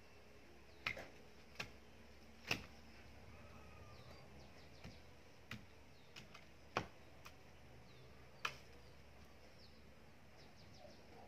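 A long-handled garden hoe chopping into soil: about ten sharp, irregular strikes, stopping near the end.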